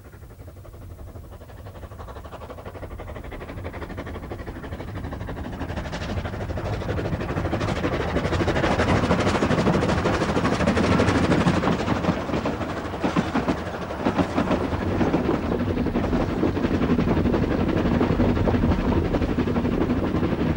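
A 3-foot narrow-gauge steam locomotive working a train, its fast, rhythmic exhaust beats growing steadily louder over the first eight seconds or so, then running loud and steady with the train's rumble beneath.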